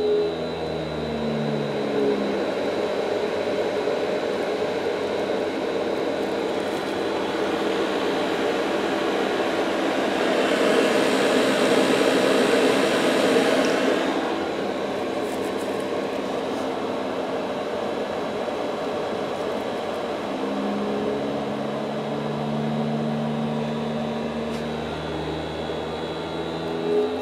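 Car AC blower motor run by a home-built 555-timer PWM controller through a MOSFET, its speed turned up and down: the fan's air rush rises to its loudest about ten to fourteen seconds in and then falls back. At the lower speeds, at the start and again from about twenty seconds in, the motor buzzes with a steady hum from the PWM switching, which the builder calls funky noises.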